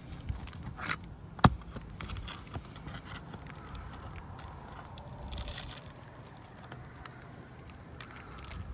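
Pry bar scraping and working under brittle asphalt shingles to loosen the roofing nails, with one sharp click about a second and a half in.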